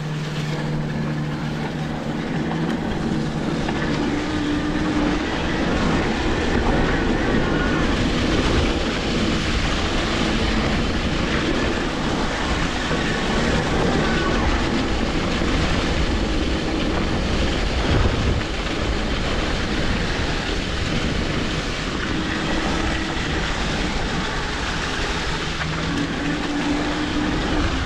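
Electric mountain bike ridden along a trail: a steady rumble of tyres over the ground mixed with wind noise. A faint motor whine comes and goes.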